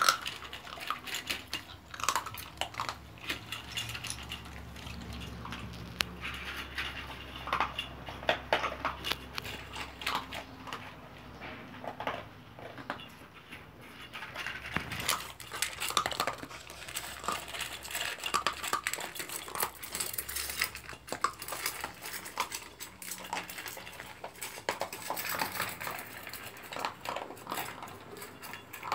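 Two dogs eating dry kibble from a stainless-steel bowl: irregular crunching, and clinking of kibble and teeth against the metal bowl.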